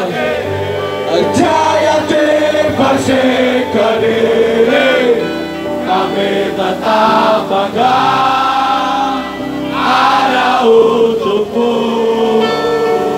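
A large crowd singing a football supporters' anthem together in unison with a live band, loud and steady.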